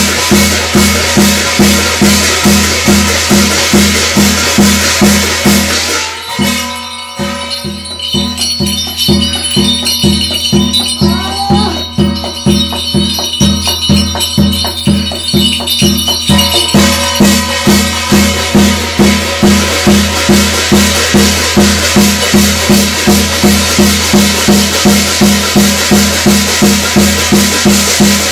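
Korean shamanic gut ritual music: a drum keeps a steady quick beat, about three strokes a second, under a dense metallic jingling and clashing. The metal drops out about six seconds in and comes back some ten seconds later.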